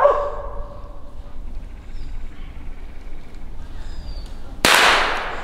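A hound's bay trails off, followed by a few seconds of quiet woods. Near the end comes one sudden loud gunshot that dies away over most of a second.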